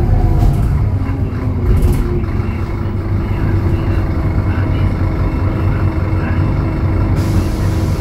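Scania DC09 five-cylinder diesel of a city bus running under way, heard from inside the bus, with a couple of sharp knocks or rattles in the first two seconds. A hiss of air starts suddenly near the end.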